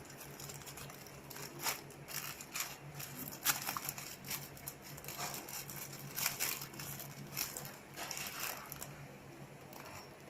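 Plastic packaging film bag being handled, crinkling in irregular bursts, over a steady low hum.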